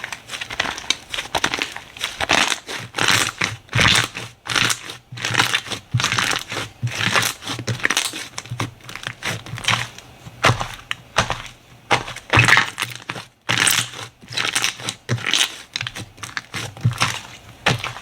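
Slime being squeezed and pressed by hand, giving a run of irregular short crunchy bursts, several a second.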